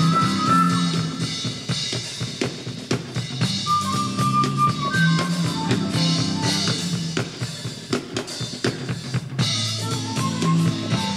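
A drum kit played hard and busy: snare, bass drum and cymbals in dense, quick strokes, over a band's bass line and a held melody.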